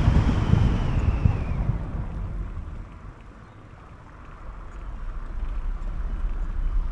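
Vehicle noise with wind on the microphone. It fades away over the first three seconds, dips quiet, then builds again toward the end.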